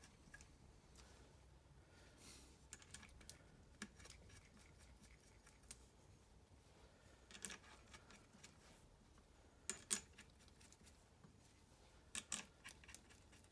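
Faint, scattered clicks and taps of small steel bolts being picked up and fitted by hand into the crown wheel on a Quaife ATB differential carrier. The sharpest clicks come about ten seconds in, with a quick cluster near the end.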